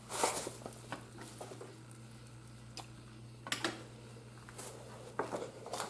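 Soft scattered clicks and short rustles of plastic turn signal housings being handled and turned over, over a steady low hum.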